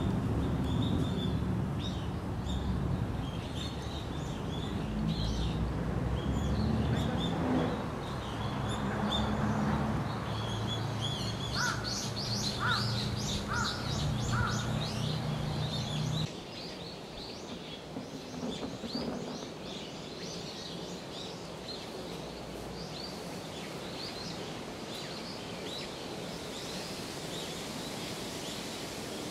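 Outdoor ambience of small birds chirping, with four louder calls in a row about halfway through, over a low rumble that drops away abruptly just past the middle.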